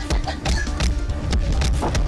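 Background music from an animated cartoon soundtrack, with a heavy bass line and sharp percussive hits about twice a second.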